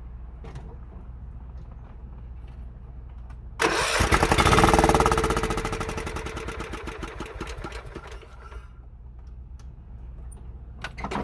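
John Deere 16 HP lawn tractor engine turning over on its starter for about five seconds, loudest at first and fading away, without starting: it is short of fuel.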